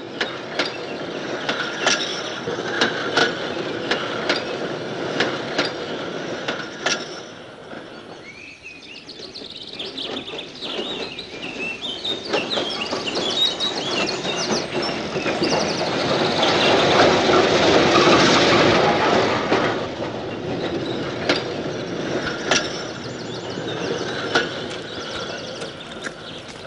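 Electric tram running on rails, its wheels clicking over the rail joints, with grinding and squealing from the wheels. It grows louder about two-thirds of the way through, then eases off.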